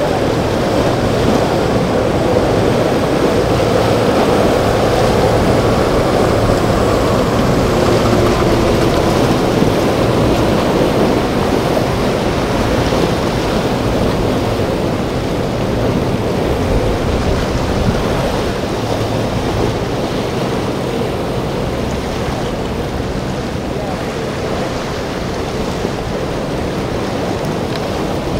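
Steady rush of wind on the microphone over breaking surf, with a boat engine running faintly underneath and shifting in pitch in the first several seconds.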